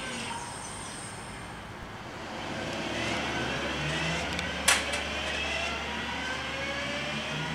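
Class 323 electric multiple unit approaching at low speed, its traction motors whining in several gliding pitches over wheel and rail noise, with a low hum setting in part way through. One sharp loud clank about four and a half seconds in.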